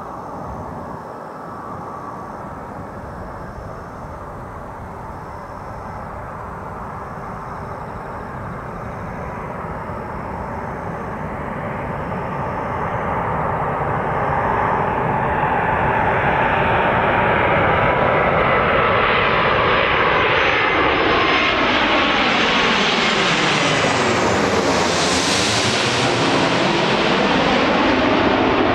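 Singapore Airlines Airbus A330-300 airliner on final approach with gear down, its two Rolls-Royce Trent 700 turbofans giving a steady jet rumble and whine. The noise grows steadily louder as it comes in low and passes overhead, with a sweeping, phasing hiss and the sharpest hiss about 25 seconds in.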